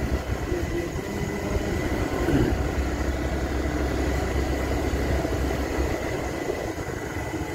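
A vehicle's engine running with a steady low rumble while the vehicle travels along the road, with road noise.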